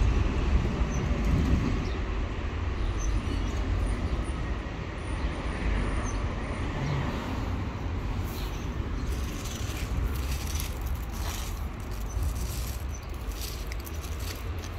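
Steady low rumble of road traffic, with faint short clicks in the second half.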